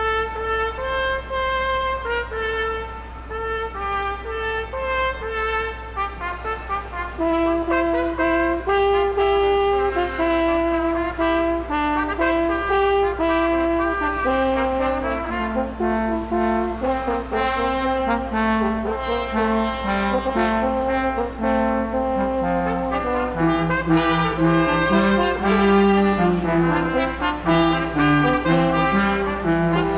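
Brass ensemble playing a Christmas piece: trumpets and trombones in held chords that move in steps, with the low brass parts coming in stronger in the second half, over a steady low hum.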